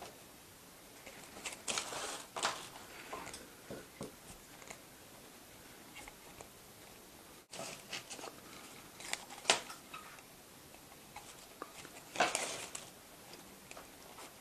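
Faint rustling and crinkling of a thin LED strip light being wrapped by hand around a post, with scattered light clicks and a few louder crinkles.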